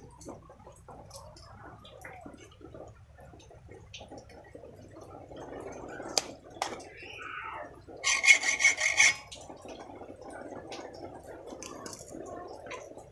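Hand tools handled at a steel bench vise: a hacksaw and a steel tape measure giving scattered rubbing, scraping and clicks. About eight seconds in comes a loud buzzing burst of about a second.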